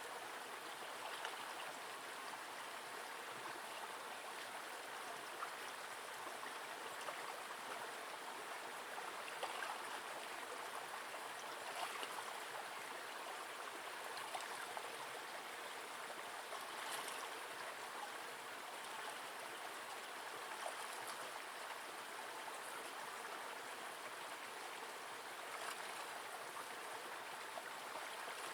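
Steady rushing and trickling of a small forest river's flowing water.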